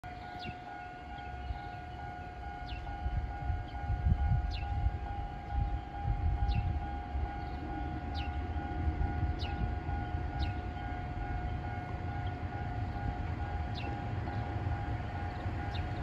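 Japanese level-crossing alarm sounding steadily, its electronic bell tone unbroken while the crossing is down for an approaching train. Gusts of wind rumble on the microphone, strongest a few seconds in, and a few short, high, falling chirps come at irregular intervals.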